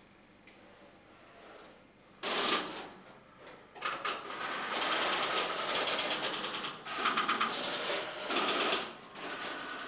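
Electromechanical switching gear of a Tesla P51 telephone exchange clattering, starting suddenly about two seconds in. It runs in several bursts of rapid mechanical ticking and chatter as the selectors step through calls.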